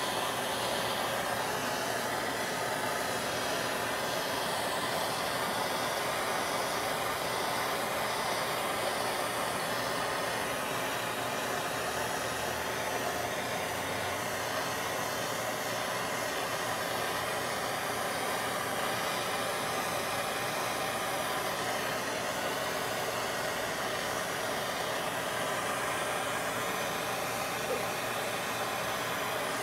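Handheld gas torch burning with a steady hiss, heating a heat-shrink boot down onto a coax cable splice.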